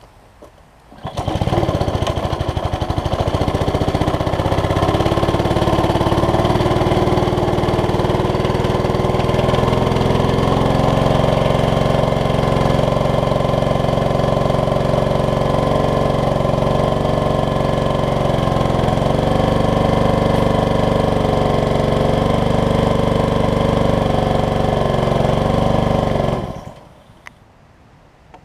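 Honda GCV160 single-cylinder four-stroke engine on a pressure washer pull-started, catching about a second in and running steadily at speed, with a brief dip in pitch about two-thirds through, then stopping abruptly near the end.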